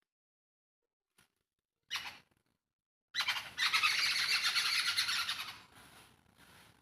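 Babblers (darle hakki) calling: a short harsh call about two seconds in, then a loud, harsh chattering squawk for about two seconds that fades into fainter repeated calls near the end.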